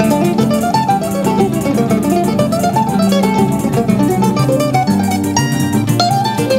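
Choro music played on plucked strings, an acoustic guitar with a bandolim, in a quick run of notes over a moving bass line.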